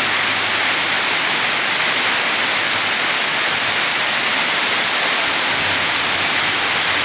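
Heavy rain falling on a corrugated metal roof, a loud, steady hiss without a break.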